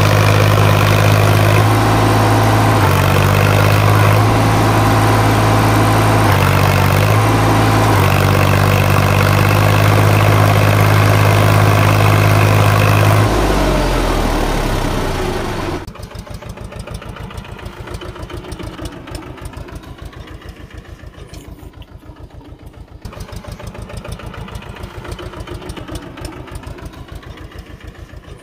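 Sonalika RX 50 tractor's diesel engine running hard, its revs stepping up and down as the rear wheels spin in deep mud. About thirteen seconds in the revs fall away, and from about sixteen seconds in a tractor engine idles, much quieter, with an even putter.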